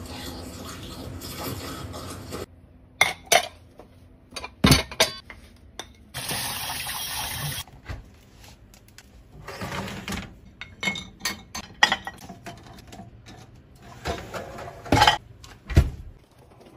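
Kitchen clatter: dishes and cutlery clinking and knocking, with cabinet or appliance doors being handled, and a steady rush like running water lasting about a second and a half midway.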